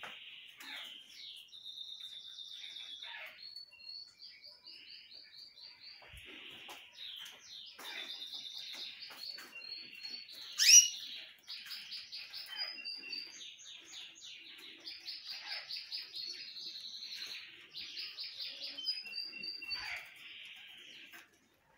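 Caged domestic canary singing a long, continuous song of rapid trills and repeated high notes, with one loud, sharp rising note about ten and a half seconds in.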